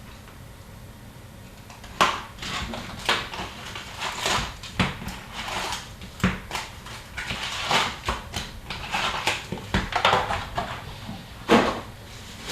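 Sealed box of hockey card packs being torn open: irregular crinkling and sharp rustles of plastic wrap and cardboard, starting about two seconds in, with a loud snap near the end.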